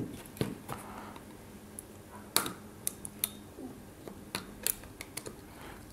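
Scattered light clicks and taps from a printed circuit board and its components being handled on a work surface, the loudest about two and a half seconds in.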